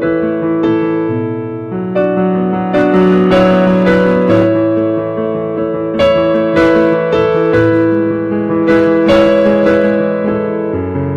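Piano or electric keyboard playing slow sustained chords, a new chord struck every second or two.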